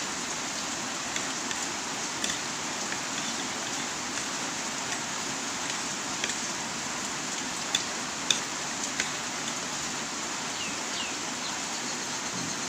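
Heavy rain falling steadily, a constant hiss with scattered sharp ticks of drops striking nearby surfaces.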